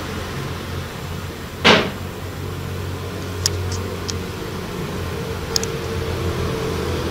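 A steady low mechanical hum, with one short loud whoosh about one and a half seconds in and a few faint ticks a couple of seconds later.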